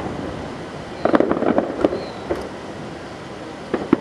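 Aerial fireworks shells bursting: a rapid cluster of sharp bangs about a second in, echoing as it dies away, and another cluster of bangs starting just before the end.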